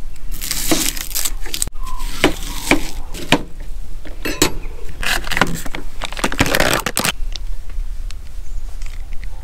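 Kitchen knife clicking and tapping on a plastic cutting board as an onion is cut, with a few clinks of utensils and cookware.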